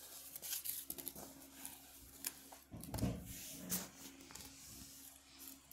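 Light crinkling and clicking of packaging being handled and set down on carpet: a small plastic bag of ear tips and a cardboard box, with a soft thump about three seconds in.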